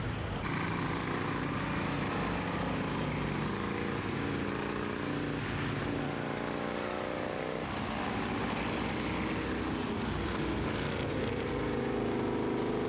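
Harley-Davidson motorcycles' V-twin engines running, a steady engine note that shifts in pitch a few times.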